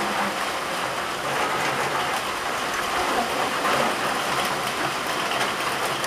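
Steady heavy rain falling on leaves and plants: an even hiss of rain with a fine patter of drops.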